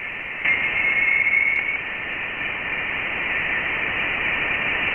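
Voyager 1 plasma-wave data turned into sound: a steady static-like hiss that cuts off above its upper range, with a thin whistle-like tone for about a second near the start. It is the signal of plasma waves from charged particles that Voyager 1 detected as it crossed into interstellar space.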